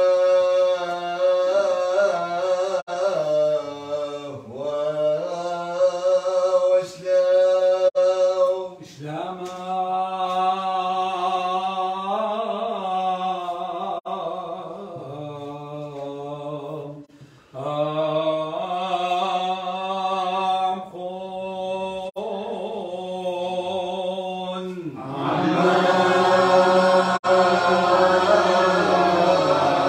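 Chaldean liturgical chant sung by a single male voice in long, held and slowly gliding phrases, with short breaks between them. About 25 seconds in the singing becomes louder and fuller, as if more voices join.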